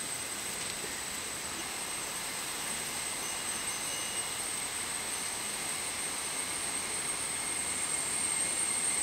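Hot coconut oil sizzling steadily as ribbon pakoda dough strands are deep-fried in a wok, a dense hiss of frying bubbles with a thin high tone over it. It grows a little louder near the end as fresh dough is pressed into the oil.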